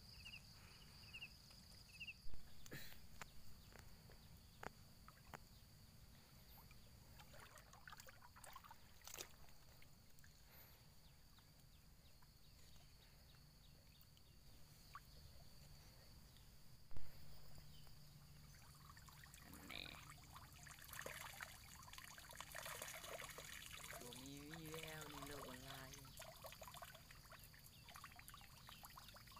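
Faint water trickling and splashing as a plastic-bottle shrimp trap is handled in shallow river water, busier in the second half, over a steady high hum.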